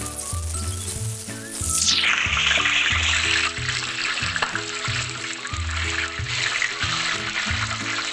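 Hot oil in a wok sizzling around whole tomatoes as a metal spatula rolls them to loosen their skins; the sizzle grows loud about two seconds in. Background music with a repeating bass beat plays throughout.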